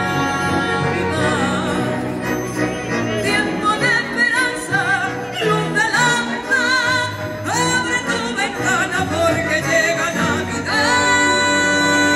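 A woman singing a Christmas song live with a symphony orchestra, her voice wavering in vibrato over the orchestral accompaniment. About eleven seconds in, the music settles into a long held note.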